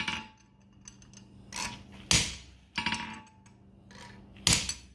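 Farrier's hammer striking a fuller against a steel horseshoe to mark the fullering line: about five unevenly spaced blows, each with a short metallic ring.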